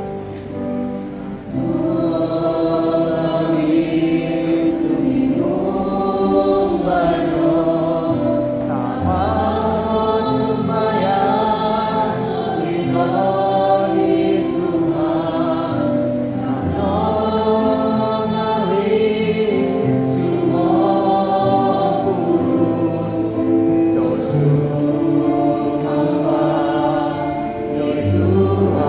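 A congregation singing a hymn together in Kadazandusun, the voices coming in fully about a second and a half in.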